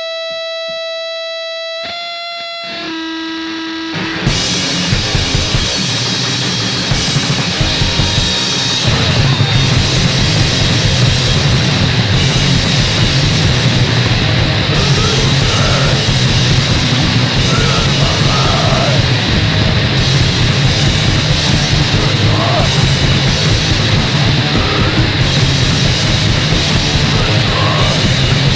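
Punk band recording with distorted guitar and drum kit. It opens on a few held single notes that step lower, then the full band crashes in about four seconds in and plays fast and loud.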